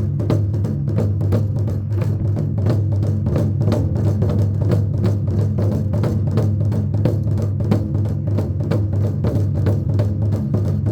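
Festival drums beaten in a fast, even rhythm, about four to five strikes a second, over a steady low hum.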